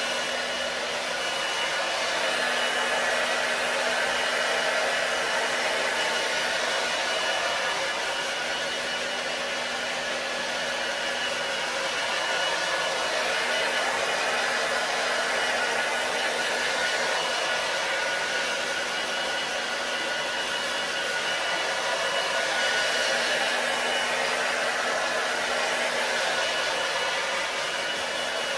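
Hand-held hair dryer blowing steadily, an even airy rush with a faint low hum.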